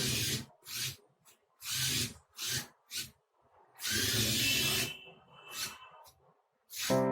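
A small electric motor, such as a power screwdriver or the car's own gear motors, running in about nine short, irregular bursts with brief stops between them.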